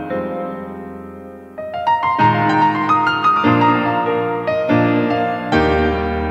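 Background instrumental music: a held chord fades away, then from about one and a half seconds in a melody of single notes moves over changing chords.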